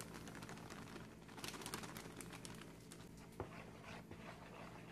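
Faint rustling and scraping of wheat flour being poured from a paper bag into a plastic bowl and worked in by hand, with a small knock about three and a half seconds in, over a low steady hum.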